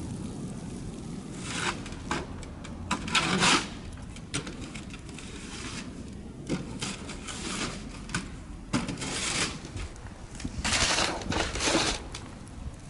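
Repeated scraping and crunching of snow, in irregular bursts of about half a second to a second, over a steady low rumble.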